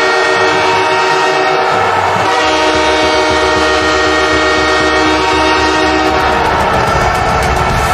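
Los Angeles Kings' hockey goal horn blowing one long, loud, continuous blast with several steady tones sounding together.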